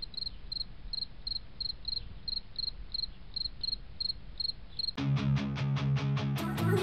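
A cricket chirping: short high chirps, about three a second, over a faint hiss. About five seconds in, loud strummed guitar music cuts in and takes over.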